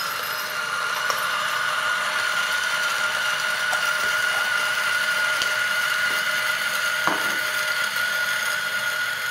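Electric burr coffee grinder running steadily, its motor giving a constant high whine as it grinds an 18 g dose of espresso beans.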